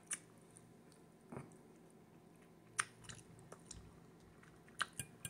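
A person chewing a mouthful of shrimp and noodles with closed lips: faint wet smacking with a few sharp mouth clicks scattered through.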